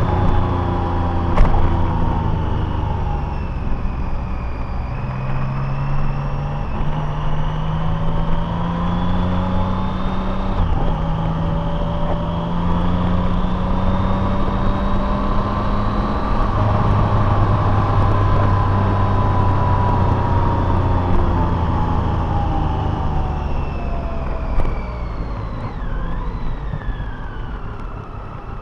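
Car engine and road noise heard while driving, the engine note gliding up and down and jumping to a new pitch several times. A single sharp click about a second and a half in.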